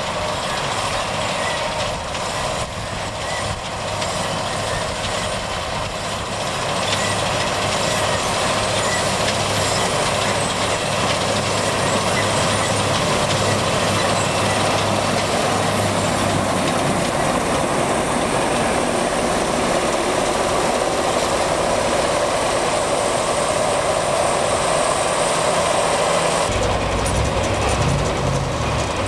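Gomselmash KZR-10 'Polesye Rotor' combine harvester running while cutting grain: the steady noise of its engine and threshing machinery. It grows louder about a quarter of the way in, and the low rumble changes near the end.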